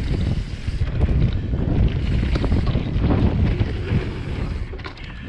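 Wind buffeting the microphone over the tyre roar and chassis rattle of a mountain bike riding fast down a dirt trail, with a few sharper knocks near the end as it rolls onto a wooden bridge drop.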